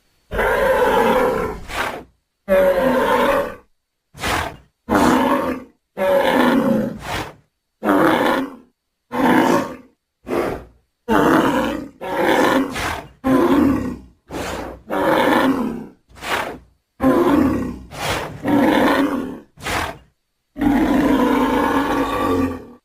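Designed creature calls for the extinct giant buffalo Pelorovis oldowayensis, built from buffalo, bison, bull and aurochs sounds: a long run of separate bellows and grunts, each lasting from under a second to about two seconds, cut apart by short silences. The longest bellow comes near the end.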